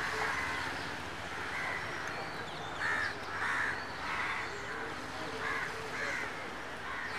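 Crows cawing again and again, a short call about every second, over a murmur of crowd voices.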